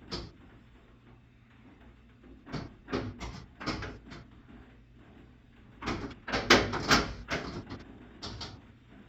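Clusters of sharp clicks and clattering as washer panel and cabinet parts are handled during disassembly: a burst about two and a half seconds in, and a louder one from about six to eight and a half seconds in.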